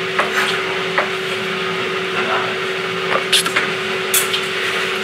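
Steady kitchen hum with one constant low tone, broken by a few light knocks and clinks of cooking utensils and a frying pan.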